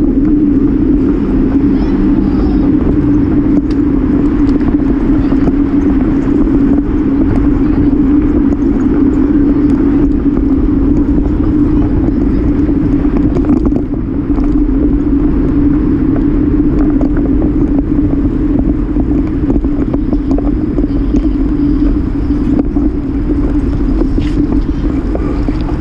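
Steady wind rush and low rumble on the microphone of a camera carried on a moving bicycle, with a constant low hum underneath.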